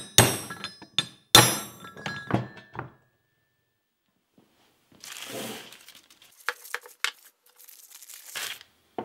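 Hammer blows on a steel drift knocking the old bearing race out of a cast swivel housing: two hard, ringing metallic strikes about a second apart, then lighter clinks. After a pause, waxed paper crackles and rustles as a new bearing is unwrapped.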